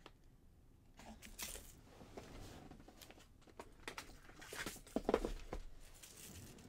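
Faint clicks, taps and rustling of hands rummaging among jewellery-making supplies for a container of small jump rings, with a cluster of louder taps about five seconds in.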